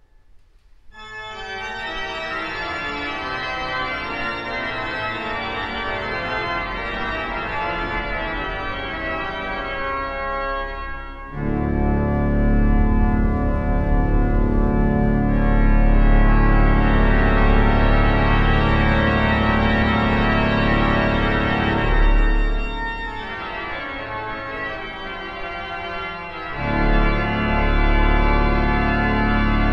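Organ playing full, sustained chords. Deep bass notes come in about eleven seconds in, drop away for a few seconds later on, and return near the end.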